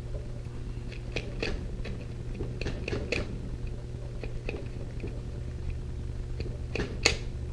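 Plastic razor blade scraping the water pump mounting surface of an outboard lower unit clean, in short irregular strokes, with one sharper scrape about seven seconds in.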